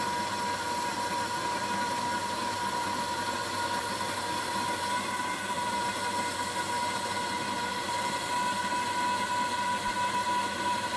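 Hare & Forbes swivel-base metal-cutting bandsaw running steadily as its blade cuts through a 1 in × 3/4 in steel bar, with a constant high-pitched tone over the machine noise.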